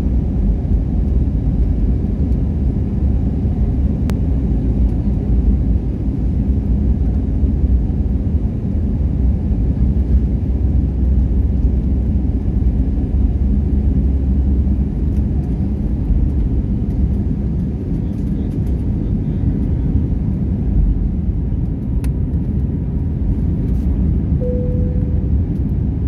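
Steady low rumble of an airliner cabin in flight: engine and airflow noise. A brief single tone sounds near the end.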